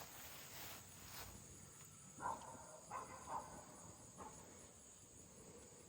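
Quiet outdoor pasture ambience with a steady high insect drone. A few footsteps come in the first second, and four short faint chirping calls come around the middle.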